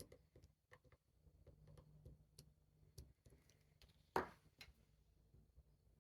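Faint irregular metallic ticks and taps of a wire pick in a pin vise tapping the tapered pins of a van lock padlock, with one louder click about four seconds in.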